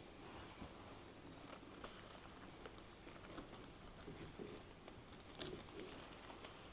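Faint rustling and light ticking of artificial flower stems and leaves being handled and pushed into a floral foam and moss base, in small scattered touches.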